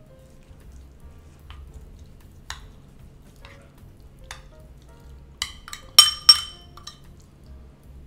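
Metal spoon stirring diced beef in marinade in a ceramic bowl, with scattered light clinks and a few sharp ringing clinks of the spoon against the bowl about six seconds in.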